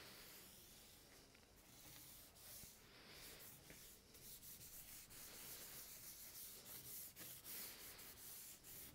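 Faint swishing of a bristle paintbrush stroking finishing oil across an end-grain wooden board, in repeated back-and-forth strokes.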